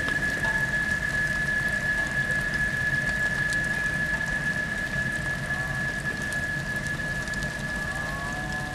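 Water washing over rocks, a steady rushing, spattering noise, with a single continuous high steady tone over it. A few faint gliding chirps come in near the end.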